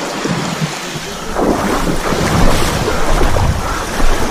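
Wind buffeting the microphone over the wash of sea waves, with a heavier low rumble setting in about a second and a half in.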